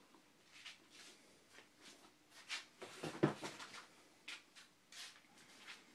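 Light rustling and soft knocks of a spiral-bound paperback cookbook being picked up and put into a box, with one sharper knock a little after three seconds in.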